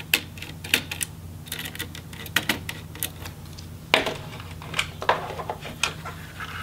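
Small Phillips screwdriver working the spring-loaded heatsink screws on a laptop motherboard: a quick, irregular series of small metal clicks and taps. A sharper knock about four seconds in is the loudest sound.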